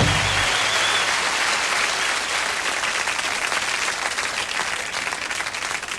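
A concert audience applauding and cheering, with a whistle about a second in, as the band's held final chord stops just after the start. The applause slowly thins out to scattered clapping.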